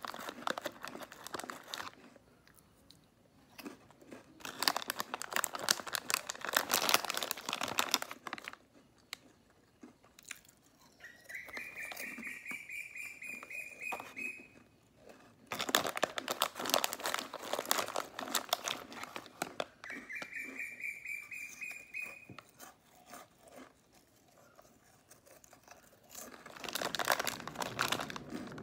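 Crisp snack cracker biscuits crunched and chewed close to the microphone in several bursts with quiet gaps, along with the crinkling of the plastic snack bag as it is handled. Twice a thin whistle-like tone rises slowly over a few seconds.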